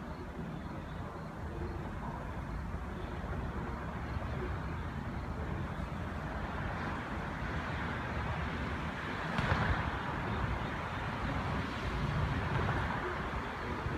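Steady outdoor vehicle rumble with a hiss, swelling briefly about nine and a half seconds in and again around twelve seconds.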